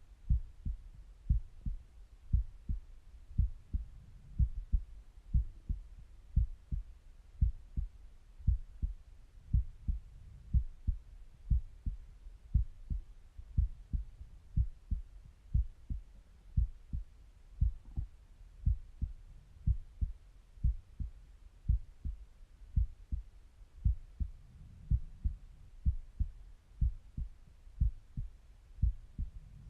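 A resting human heartbeat heard through a stethoscope: a steady, even run of low, muffled lub-dub thumps.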